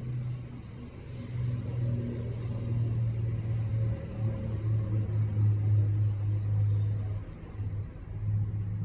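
A low, steady mechanical rumble that grows louder about a second in and drops away briefly near the end.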